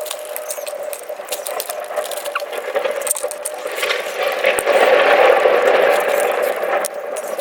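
Close-miked eating sounds from a bowl of bakso and noodles: many small sharp clicks, as of spoon and bowl, over a steady background. A louder, noisy stretch runs from about four to seven seconds in.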